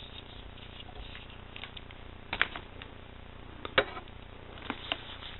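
A few small, sharp clicks and taps of metal knife parts and a small driver being handled while a folding knife's pivot screw is tightened, the loudest near the middle.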